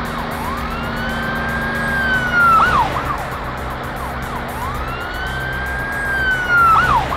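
Cartoon police siren sound effect, two wails: each rises, holds high, then drops with a quick wobble at the end, over a steady low drone.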